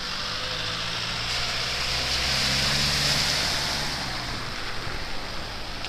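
An SUV driving through deep standing water on a flooded street: a low engine hum under a loud hiss of spray from the tyres, which builds to a peak about three seconds in and then fades as it passes.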